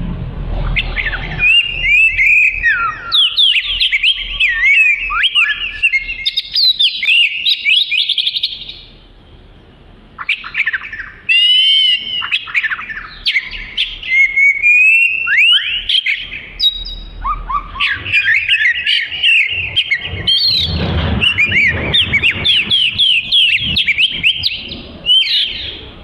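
Oriental magpie-robin in full song: a long run of fast, varied whistles, trills and chattering phrases, with a brief break about nine seconds in before the song picks up again.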